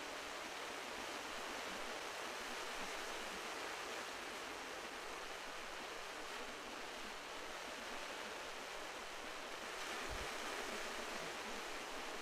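Sea surf washing steadily against a rocky coast, swelling a little about ten seconds in.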